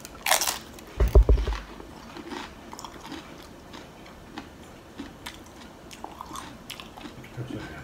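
Close-up bite into a loaded tortilla chip: a sharp crunch, then steady chewing with many small crunching clicks. A loud low thud comes about a second in.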